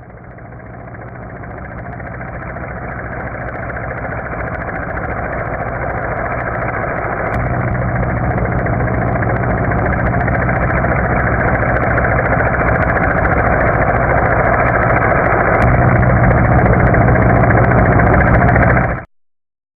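Helicopter approaching: rotor and engine noise grows steadily louder from a faint start, then cuts off suddenly near the end.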